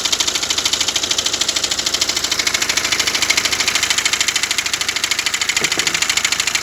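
BMW X1 diesel engine idling with a fast, even knocking clatter. The mechanic traces this noise to a failing crankshaft damper pulley.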